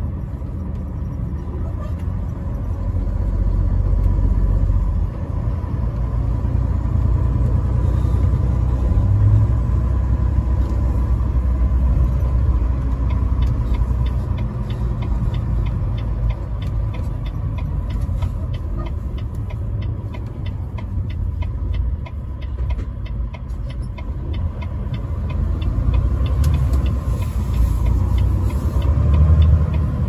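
Truck running down the road, heard from inside the cab: a steady low rumble of engine and tyres, with a faint fast ticking for several seconds midway.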